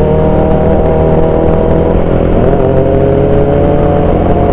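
Motorcycle engines running at a steady pace while riding in traffic, with a slight shift in pitch about halfway through.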